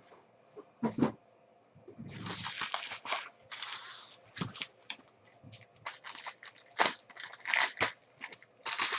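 Trading-card pack wrappers being torn open and crinkled by hand. There is a sharp crack about a second in, a long tearing rip from about two to four seconds in, then a dense run of crackling crinkles.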